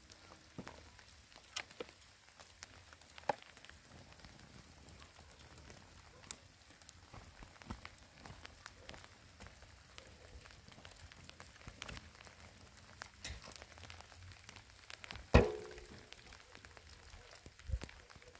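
Faint steady patter of rain with scattered small taps and clicks, and a sharp knock that rings briefly about fifteen seconds in.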